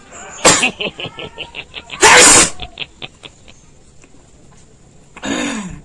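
A person sneezing. A sharp burst comes about half a second in, then a run of quick short catches of breath, a loud sneeze about two seconds in, and another sneeze with a falling voiced tail near the end.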